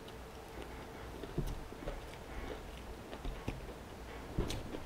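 Close-miked chewing of a bite of fried chicken tender: soft, irregular mouth clicks and smacks, with a sharper click about a second and a half in and another near the end.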